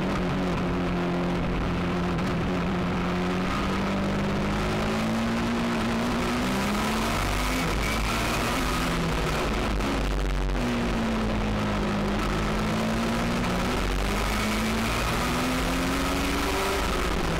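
U.S. Legend car's Yamaha four-cylinder motorcycle engine running hard on track, its pitch rising and falling slowly several times with the throttle.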